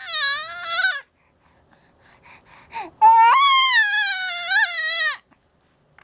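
A 4-month-old baby's high-pitched, cry-like vocal noises. A wavering call lasts about a second at the start, a few faint short sounds follow, and a louder call of about two seconds comes just after the middle.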